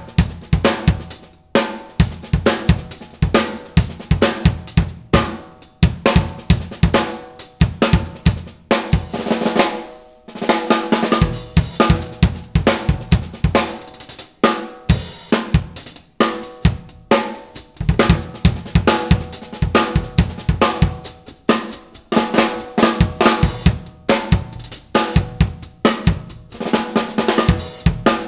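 Mapex Black Panther Machete 14x6.5 snare drum, tuned high, played in drum-kit grooves with bass drum, hi-hat and cymbals. The cymbals ring more heavily for several seconds in the middle.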